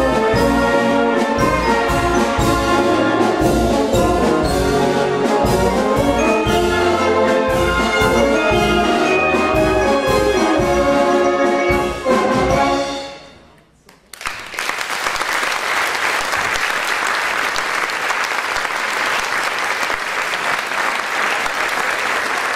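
Concert wind band of brass, woodwinds and percussion playing over a steady drum beat, ending on a loud final chord about twelve seconds in that dies away. After a moment of silence the audience breaks into applause that keeps going.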